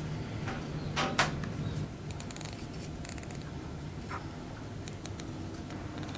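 Kitchen scissors snipping into a soft marshmallow: a few short, sharp clicks of the blades, the two loudest close together about a second in, over a steady low hum.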